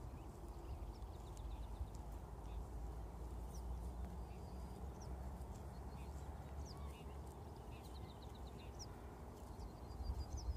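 Horse grazing close up, tearing and chewing grass, over a steady low rumble. Small birds chirp faintly in the background.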